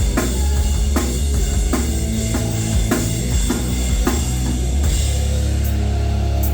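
Live rock band playing loudly, with the drum kit's regular snare and cymbal hits over a heavy low bass. About five seconds in, the drum hits mostly drop away and a sustained low chord rings on.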